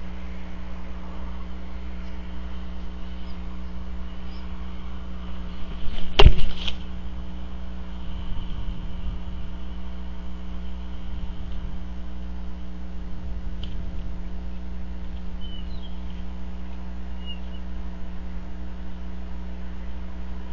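Steady low electrical hum from a nest camera's sound system, broken about six seconds in by one loud knock. A few faint, short, high chirps follow in the later half.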